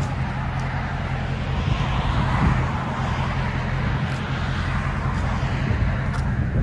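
2005 Cadillac STS Northstar V8 idling steadily through a muffler-delete exhaust: stock catalytic converters and factory resonator kept, 2¼-inch pipes to the dual tips. A low, even exhaust note with no revving.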